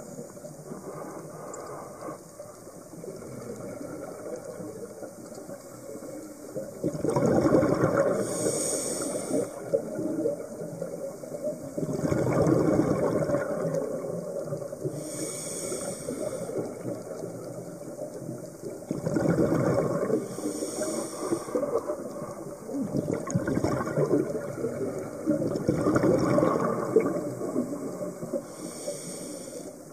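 Scuba diver breathing through a regulator, heard underwater. Exhaled bubbles come as a bubbling rush every several seconds, and a short high hiss comes with each breath.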